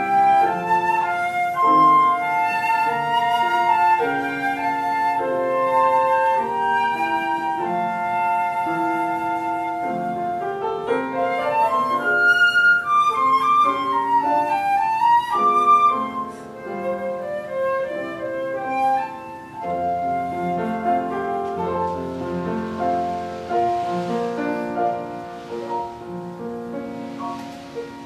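Two concert flutes playing a Japanese lyrical song melody over grand piano accompaniment, with quick running passages about halfway through. About halfway the music turns quieter, with softer piano and lower sustained notes, and a soft swishing sound comes in near the end.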